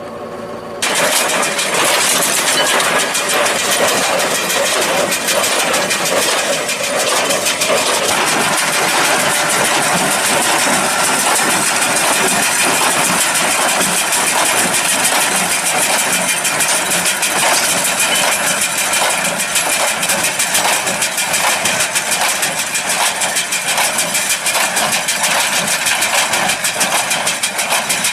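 New Holland TS100 tractor and New Holland 575 small square baler working hay. The sound jumps up suddenly about a second in, then runs loud and steady with an even rhythmic pulsing.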